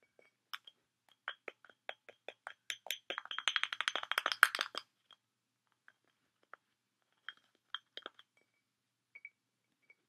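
White cockatoo tapping and pecking its beak against a glass wine bottle: sharp clinking taps that quicken into a rapid rattle of clicks from about three to five seconds in, then a few scattered taps.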